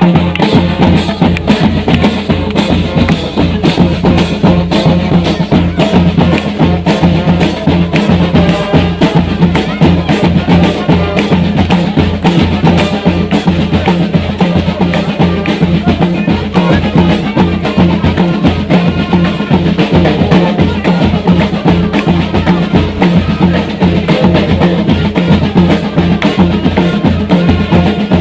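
Military band playing a march: bass drum and snare drum keep an even beat of about two strokes a second under a sustained low note.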